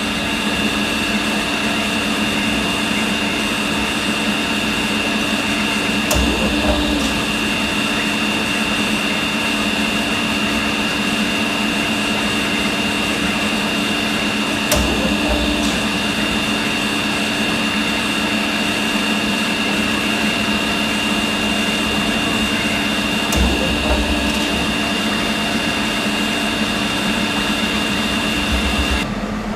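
Electrical discharge machine running while it machines, the tool sparking against the workpiece: a steady hum with a high-pitched whine, and a few soft knocks about every eight or nine seconds.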